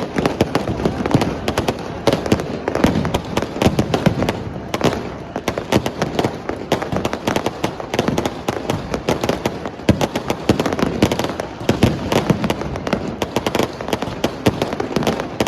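Firecrackers going off in a dense, continuous stream of sharp cracks and pops, several a second, thinning briefly about five seconds in.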